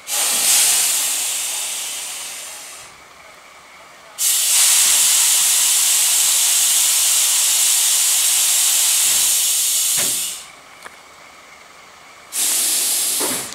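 Compressed air hissing out of the Ki 100 Russell snowplow car's air system as its plow gear is worked, in three blasts. The first starts sharply and fades away over a few seconds, a second holds steady for about six seconds, and a short third blast comes near the end.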